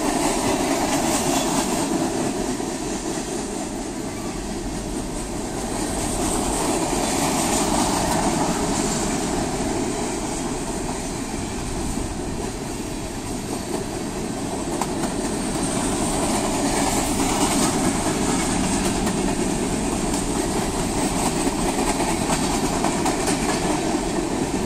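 Freight train of tank cars and covered hopper cars rolling past at close range, the wheels clicking steadily over the rails, its loudness rising and falling slowly as the cars go by.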